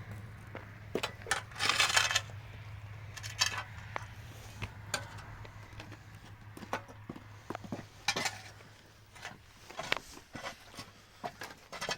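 Scattered knocks, clinks and short scrapes of objects being handled, with a low steady hum that fades out after about nine seconds.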